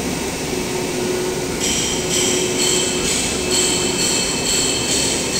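CNC multi-layer fabric cutting table running with a steady mechanical noise. About one and a half seconds in, a high-pitched whine comes in and pulses roughly twice a second as the cutting head travels and cuts.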